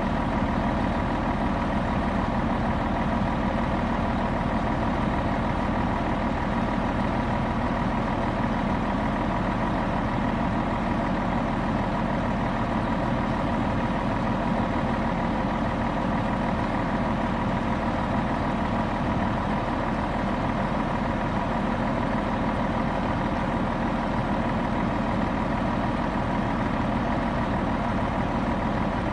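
2001 Freightliner FL112 tri-axle dump truck's diesel engine idling steadily.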